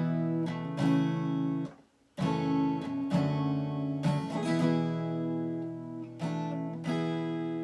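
Acoustic guitar playing strummed and plucked chords as a song intro, with one short full stop about two seconds in before the chords resume.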